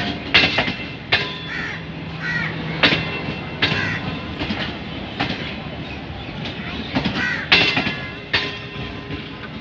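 Passenger coaches of a passing express train rolling by, their wheels clacking over rail joints. Irregular sharp clacks come every half second to a second over a steady rumble.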